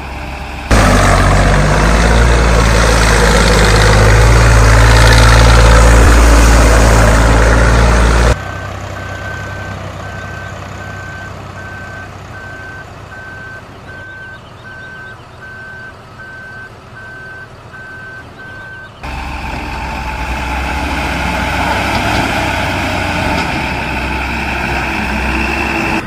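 Truck engine sound running loud, cutting off abruptly about eight seconds in. Then a reversing beeper beeps steadily, about two beeps a second, over a quieter engine for about ten seconds, before another engine sound starts abruptly.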